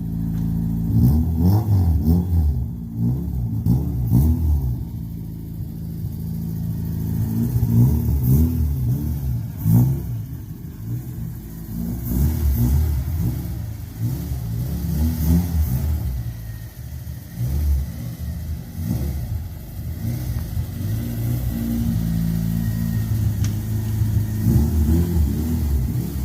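Car engine accelerating hard through the gears, its pitch climbing and then dropping back at each shift, several times over.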